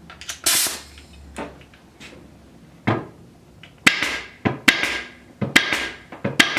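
Air hose coupled to a MEITE MT5016S 50-series pneumatic upholstery stapler with a short hiss of air, then the stapler fires about four times, a little under a second apart, each shot a sharp snap followed by a brief hiss of exhaust air.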